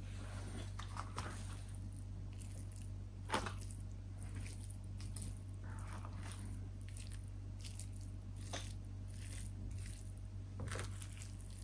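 Quiet, scattered small clicks and a few soft crunches at irregular intervals, over a steady low electrical hum.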